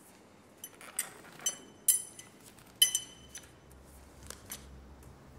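A handful of light, sharp clinks, like small glass or metal objects struck, each with a brief high ringing; the loudest comes about three seconds in.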